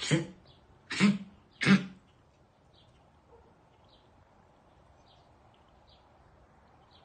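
Small dog coughing three times in quick succession, short harsh coughs under a second apart: the persistent cough that comes on after exertion, for which no cause was found despite a clear chest X-ray.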